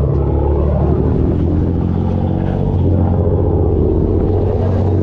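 Boat's engine running steadily with a low, even hum.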